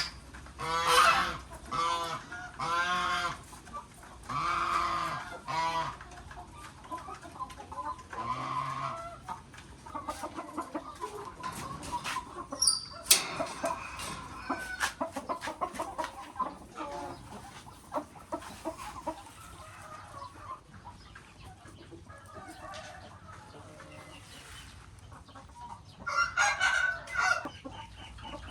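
Chickens clucking and calling, with several drawn-out calls in the first few seconds and another burst of calls near the end. Between them comes a busy run of short clicks.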